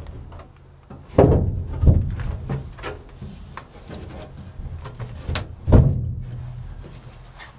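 Small dinghy hull being handled and swung up into its mounting slots: several heavy thumps and knocks of the hull against its frame, the loudest about a second in and again near six seconds, with rumbling and scraping between.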